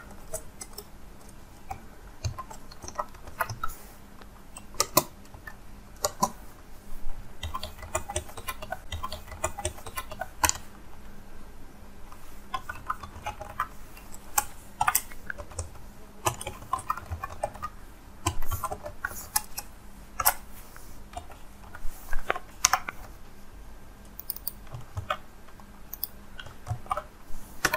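Typing on a computer keyboard: irregular runs of keystroke clicks with short pauses between them.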